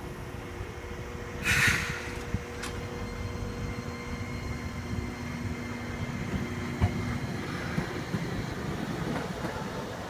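Toden Arakawa Line streetcar running past on its track: a steady rumble of wheels on rail with a steady motor hum. A short loud hiss comes about a second and a half in, and a single knock near seven seconds.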